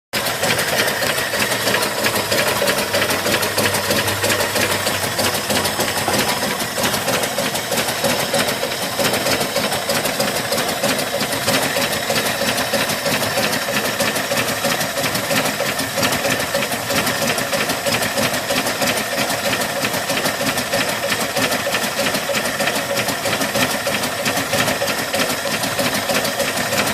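1972 Ford F100's 240 cubic-inch inline six-cylinder engine idling steadily, with a rapid, even ticking rhythm, during a vacuum test to diagnose an engine fault.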